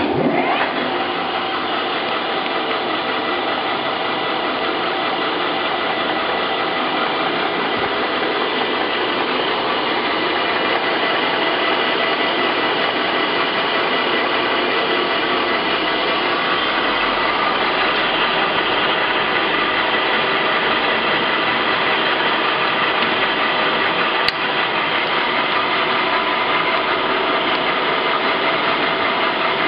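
Howa Sangyo Model 1000 engine lathe starting up: the spindle drive spins up within about half a second, then runs steadily with a whine of several steady tones from the headstock gearing. One brief click a little over three-quarters of the way through.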